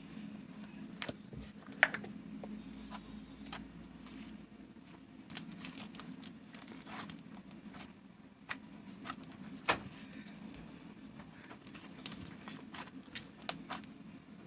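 Slime being handled and pressed by hand, giving scattered sharp clicks and pops over a steady low hum.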